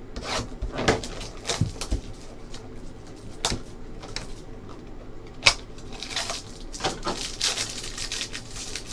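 A cardboard trading-card box being opened and handled, with scattered clicks and knocks. From about six seconds in comes a dense crinkling as the plastic wrapper of a card pack is torn open.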